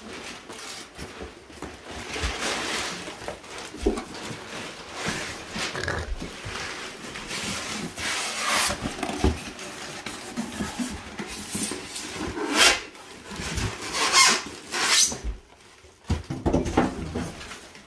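Plastic wrap and packing being pulled out of a cardboard box: irregular crinkling, rustling and scraping, with a few sharp, louder crackles in the second half.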